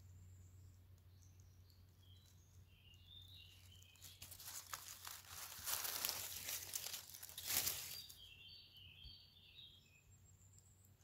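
Dry fallen leaves rustling and crackling under a hand for about four seconds, starting about four seconds in and loudest near the end of that stretch. Small birds chirp before and after it.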